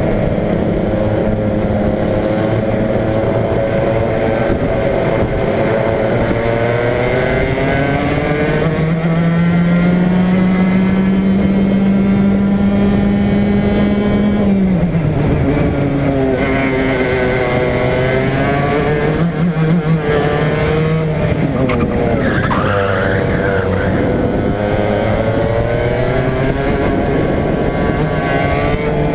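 Racing kart engine heard from on board at full song, its note climbing steadily along a straight and dropping sharply under braking about halfway through, then rising and falling through the following corners.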